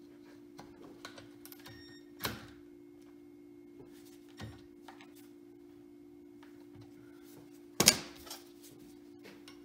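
Metal tools clicking and knocking against a Model T differential housing as its bolts are worked loose. There are a few light clicks, a sharper knock a little after two seconds, and a loud single clank near the end, over a steady low hum.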